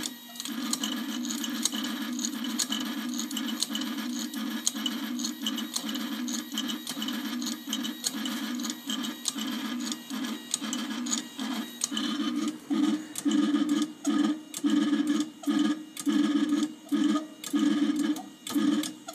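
ITL-2000 automatic safe dialer's motor spinning the dial of a three-wheel combination lock, a steady mechanical whirr with rapid clicking. About twelve seconds in it changes to short, louder bursts, about two a second, as the dialer works through combinations.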